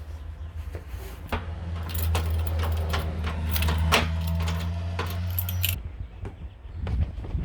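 Metal jangling and clinking in a run of quick, sharp clicks, over a steady low hum that stops suddenly near the end.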